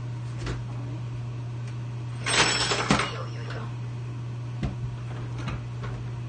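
Kitchen handling noise over a steady low hum: a short burst of clattering, rustling noise about two seconds in, and a few single light knocks later.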